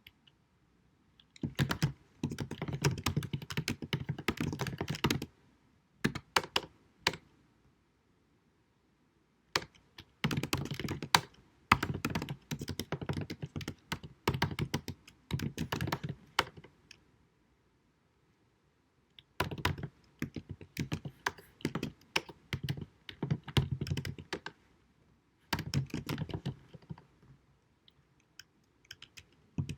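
Computer keyboard typing in bursts of rapid keystrokes, several seconds each, broken by short pauses, recorded at low quality so the key clicks sound dull and thuddy.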